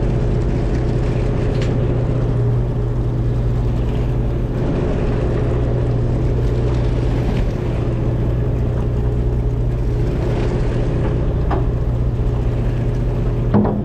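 Fishing boat's engine running steadily: a constant low hum with several held tones. A few faint ticks are scattered through it.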